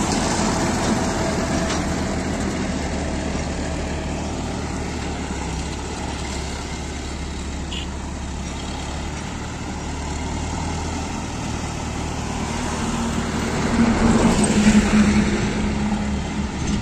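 Diesel engine of an Escort Hydra mobile crane running steadily at idle, with road vehicles passing. A louder engine with a steady hum goes by close about thirteen to sixteen seconds in.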